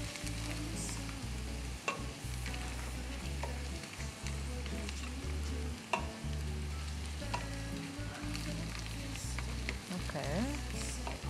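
Chopped garlic and coriander sizzling in olive oil in a frying pan while being stirred, with the utensil clicking against the pan a few times.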